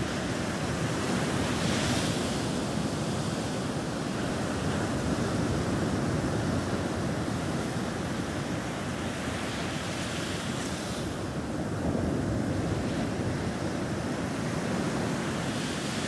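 Heavy storm surf breaking on rocks in strong wind: a continuous rush of crashing waves, with louder surges of hissing spray about two seconds in and again around ten seconds.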